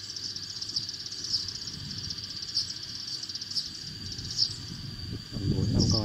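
Eurasian tree sparrow flock chatter played as a lure call from a bird-trapping loudspeaker: dense, continuous high chirping. A low rumble rises about five seconds in.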